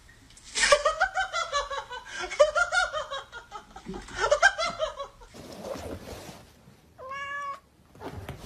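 Cats yowling at each other in three bouts of rapidly wavering, pulsing cries over the first five seconds. A short, even-pitched meow comes near the end.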